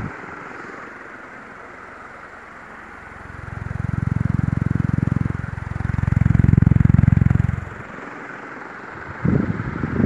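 Ventisol Wind Premium ceiling fan running with a steady airy whoosh. About three seconds in, its draft buffets the microphone in two loud, low, fluttering gusts of about two seconds each, with a shorter gust near the end.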